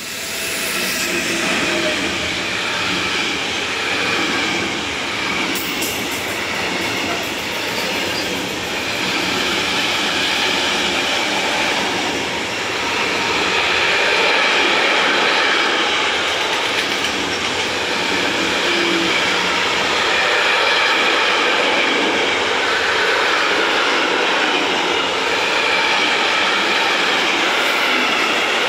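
Container freight train passing close by, hauled by a Metrans class 386 Siemens Vectron electric locomotive. The locomotive goes by at the start, then a long string of container wagons rolls past with a steady noise of wheels on rails, a little louder from about halfway.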